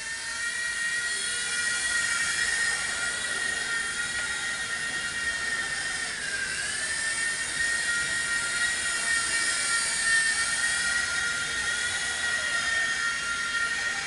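WL-Toys V911 micro RC helicopter in flight, its small electric motor and rotor giving a steady high-pitched whine that dips briefly in pitch about six and a half seconds in, then climbs back.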